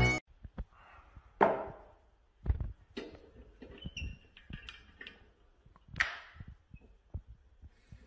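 Quiet handling sounds of a glass and a whiskey bottle in a metal tilting pourer stand: scattered light clicks and knocks, with two short hissing noises, one about a second and a half in and one about six seconds in.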